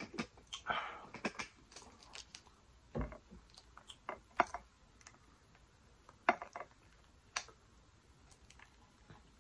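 Close-up eating and handling sounds: scattered sharp mouth clicks and short wet smacks as sauce-covered lobster tails are picked up and pulled apart by hand, with a soft thump about three seconds in.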